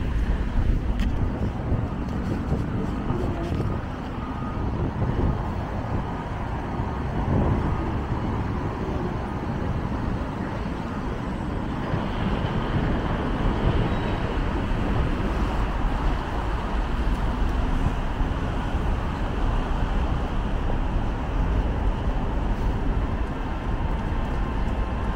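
Steady city road traffic: a constant low rumble with a hiss of passing cars' engines and tyres.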